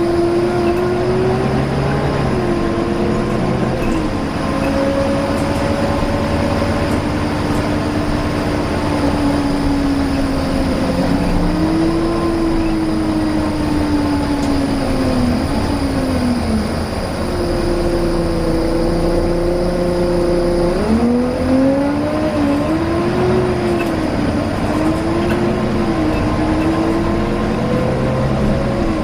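Volvo B9TL double-decker bus under way with a loud whine over the engine rumble, the whine's pitch rising and falling as the bus speeds up and slows, dropping away around halfway through and climbing again a few seconds later.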